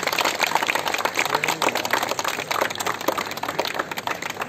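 A small crowd applauding: steady, dense hand-clapping.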